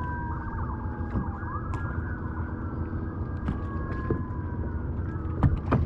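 A steady motor hum with whining tones sliding slowly up and down in pitch, and a sharp knock about five and a half seconds in.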